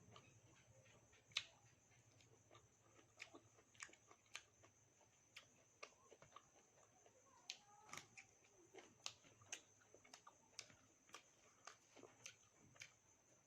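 Faint close-up eating sounds: chewing with sharp wet mouth clicks and smacks, irregular, about one or two a second.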